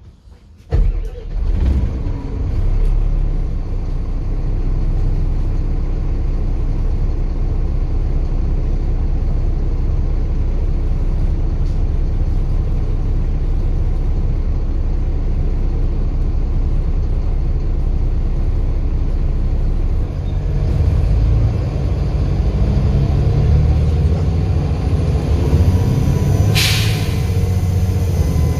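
Volvo B7 bus diesel engine running steadily, then pulling harder about three-quarters of the way through, with a faint turbo whistle. A short, sharp air hiss near the end, typical of the air brakes.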